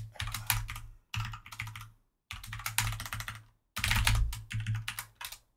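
Fast typing on a computer keyboard in several short bursts of rapid keystrokes, with brief pauses between them.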